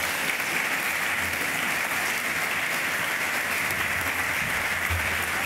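Audience applauding steadily at the end of a lecture.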